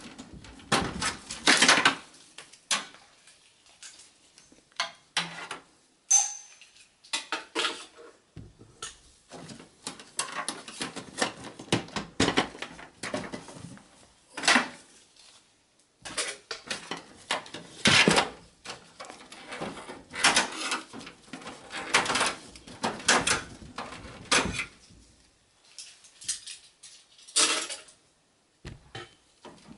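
Irregular plastic and metal clicks and rattles of cables and green plastic parts being handled and pulled inside a Dell OptiPlex GX280's steel desktop case, with short pauses between.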